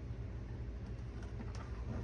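Faint clicks and taps of small parts and hand tools being handled, over a steady low hum.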